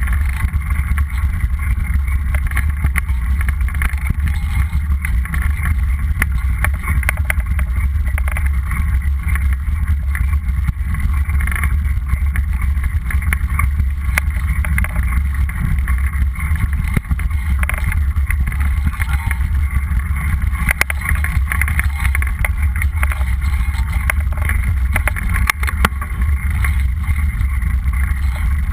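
Steady wind buffeting on the microphone of a camera riding on a mountain bike, mixed with tyre noise over a rough dirt road and many small rattling clicks.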